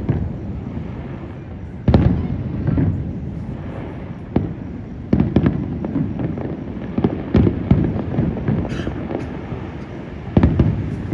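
Aerial fireworks display: a steady run of shell bursts, deep booms every second or so, each trailing off in a low rumble, with a crackling burst a little before the end.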